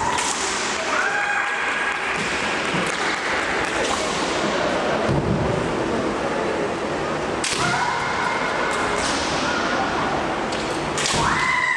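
Women kendo fighters shouting long, high-pitched kiai, several cries held for about a second, with a few sharp cracks of bamboo shinai strikes, over a steady background din.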